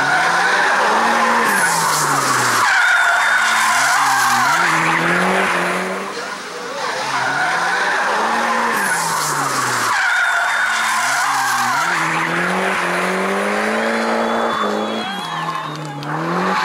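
A drift car's engine revving hard, its pitch climbing and dropping over and over as the throttle is worked, while the tyres squeal through sustained slides. The loudness dips briefly about six seconds in before the engine picks up again.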